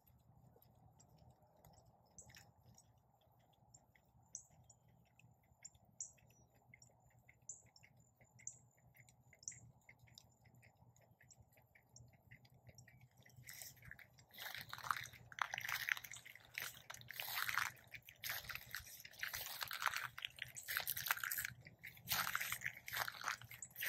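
Footsteps crunching through dry pine straw mulch, in irregular steps starting about halfway through and louder than anything before them.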